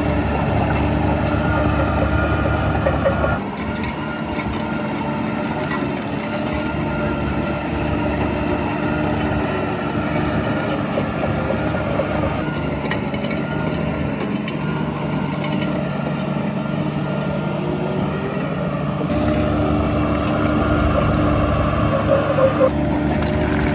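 Heavy construction machinery's diesel engine running steadily. Its deep rumble drops away about three seconds in and comes back near the end.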